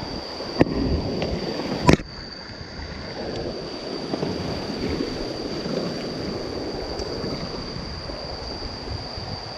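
River water rushing around an inflatable whitewater raft as it is paddled through rapids, a steady churning wash. Two sharp knocks come in the first two seconds.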